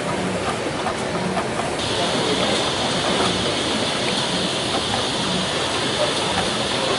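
Steady machinery noise with a low pulse about once a second. A hiss like escaping compressed air joins about two seconds in and holds.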